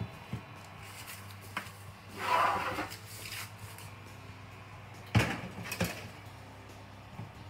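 Metal baking trays being slid onto and knocked against an oven's wire racks: a few light clicks, a scraping slide of just under a second about two seconds in, then two sharp metallic knocks a little after five seconds as a tray is set in place. A steady low hum runs underneath.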